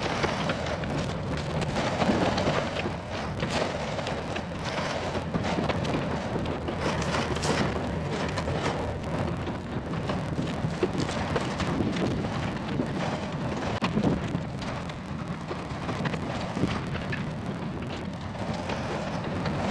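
Yanmar VIO50 mini excavator's diesel engine running steadily while brush is pushed into a pile, with dense crackling and snapping of branches throughout.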